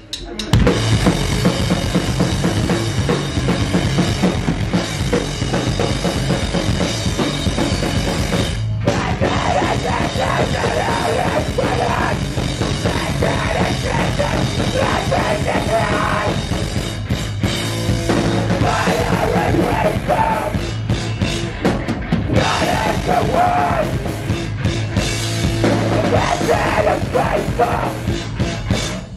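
Hardcore punk band playing live: distorted electric guitar and bass, pounding drums and yelled vocals, with a brief break about nine seconds in before the song carries on and then stops abruptly at the end.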